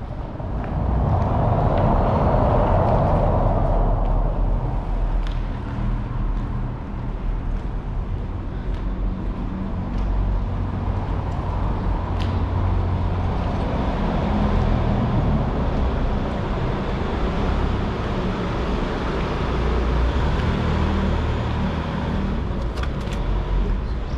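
A Tesla Model S electric car rolling over cobblestones in a vaulted stone passage, a steady low tyre rumble with no engine note.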